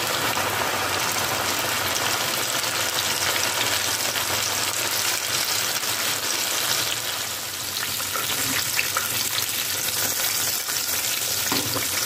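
Flour-coated chicken wings deep-frying in hot oil in a pan: a steady sizzle of oil bubbling hard around the freshly added pieces.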